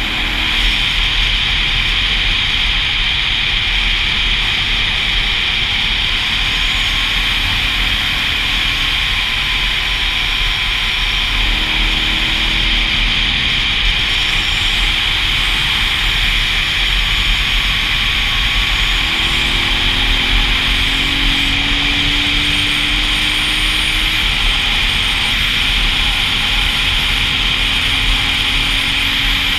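Dual-sport motorcycle riding along a road, heard from an onboard camera: a steady rush of wind and road noise over a faint engine note that rises in pitch twice as the bike speeds up.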